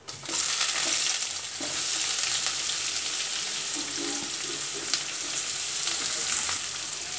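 Chopped onions sizzling in hot oil with whole spices in an aluminium kadai: a loud, steady frying hiss that starts suddenly as the onions go into the pan.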